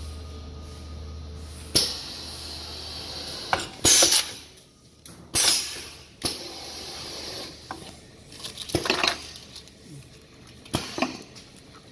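Cup-sealing machine for yogurt and bubble-tea cups at work: a series of sharp metal clanks and knocks as the press head cycles and the cups and film tray are handled, several with short hissing bursts. A steady low hum runs under the first few seconds.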